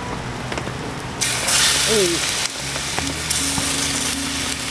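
Slices of pork tongue frying on a hot pan, the sizzle jumping up suddenly about a second in and staying loud for a little over a second before settling.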